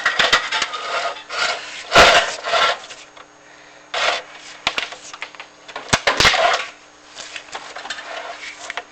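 Chimney inspection camera and its cable scraping and rubbing along the inside of a masonry flue as it is worked down past an offset, with a few sharp knocks, the loudest about two seconds in and near six seconds.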